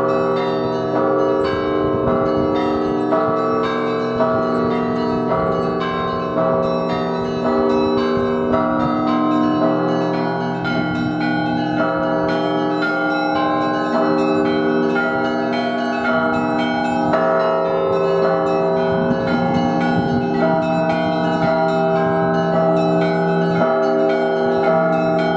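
Russian Orthodox monastery bell peal (zvon): many bells of different sizes struck in a continuous, dense rhythmic pattern. Deep bass bells ring on with long sustained tones beneath a quick succession of higher, smaller bells.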